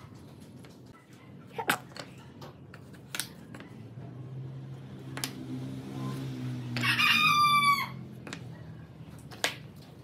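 A rooster crows once, a loud call of about a second near seven seconds in, over a low hum that swells and fades. A few sharp wooden clacks come as hexagon tiles are set down on the pine board.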